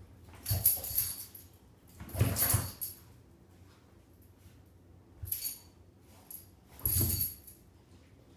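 A Boston terrier and a kitten wrestling on a towel over a tile floor: four short bursts of scuffling, rustling cloth and a light jangle, the loudest about two seconds in.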